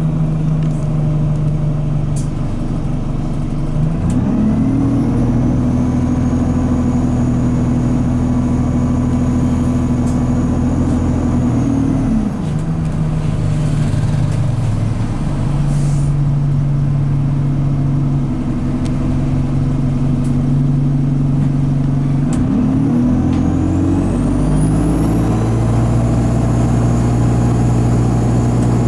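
Alexander Dennis Enviro200 bus's diesel engine heard from inside, revving up about four seconds in, dropping back near the middle and revving up again later, held in a low gear because the gearbox is stuck in 2nd/3rd and not shifting up. A high turbo squeal climbs with the revs each time.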